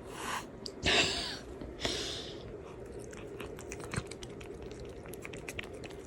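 A cat chewing: a quick, uneven run of small crunching clicks. Before it, in the first two seconds, come three short noisy bursts, the loudest about a second in.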